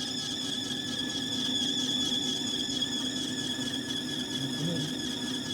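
A steady machine whine made of several high, even tones, with a faint flutter in its highest part.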